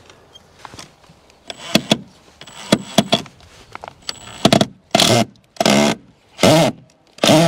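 Makita 18 V cordless impact driver driving screws through a wooden batten, in about seven short trigger pulls, its motor whine rising and falling with each one.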